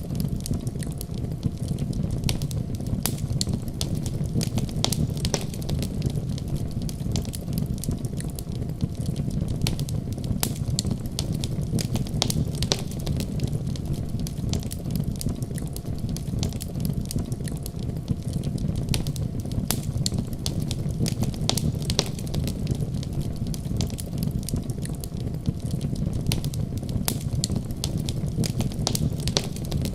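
Wood fire in a fireplace crackling, with frequent irregular sharp pops over a steady low rumble.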